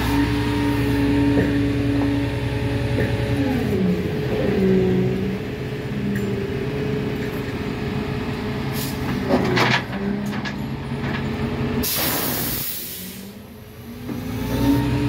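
Engine of heavy work equipment running, its pitch dropping and shifting as the throttle changes. About twelve seconds in there is a short, loud hiss, like air being released, and after it the sound dips briefly before the engine picks up again.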